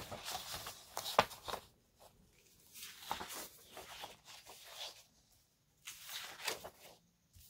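Sheets of scrapbook paper rustling and sliding against each other as they are lifted and flipped over, in a string of short swishes with a sharper tap about a second in.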